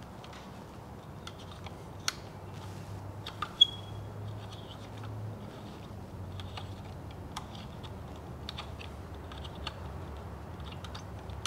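Faint small clicks and ticks of a Helicoil installation tool being turned by hand, threading a coil insert into a tapped hole in an aluminium engine front case. Two sharper clicks come a couple of seconds in, the second with a short high ping, over a low steady hum.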